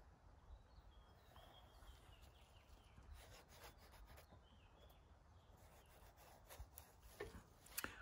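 Faint rubbing strokes of a wax crayon drawing on a pad of newsprint, coming more often in the second half; otherwise near silence.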